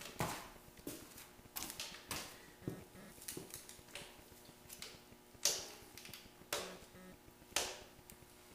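Torque wrench clicking as the cylinder head bolts of a Ford 400 V8 are tightened to 75 ft-lb, the first torque stage. Sharp metallic clicks come about a second apart, with lighter ticks between them.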